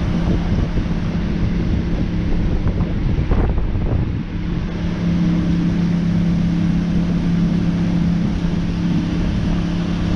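Boat motor running steadily at cruising speed, one even engine tone throughout, with wind rumbling on the microphone.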